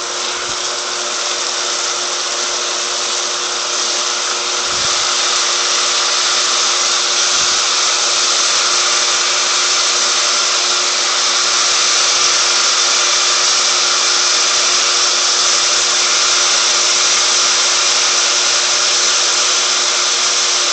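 Marinated shrimp sizzling steadily on a hot grill, a loud even hiss that builds slightly, over a steady low hum.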